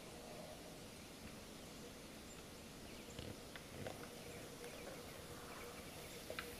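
Faint knocks and clicks of a bull elk's antlers against a water buffalo's horns as the two spar, with a few heavier knocks around the middle, over a faint steady hum.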